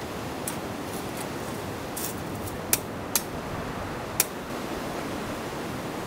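Steady wash of sea surf with a few sharp clicks of metal camping gear being handled. The three loudest clicks come close together in the middle.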